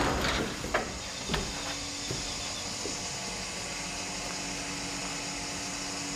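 Faint steady room noise with a low, even hum, and a few light knocks in the first two seconds.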